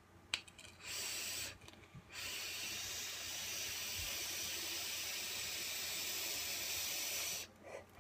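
Box-mod vaporizer with a clear tank fired at 60 watts and drawn on: a short hiss, then a long steady hiss of about five seconds from air pulled through the tank as the coil vaporizes the e-liquid, stopping abruptly near the end.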